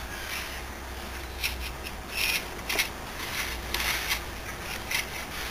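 Irregular scratchy crackles and rubbing over a steady low hum as the selector switch shaft of an old Astor valve radio is turned by hand.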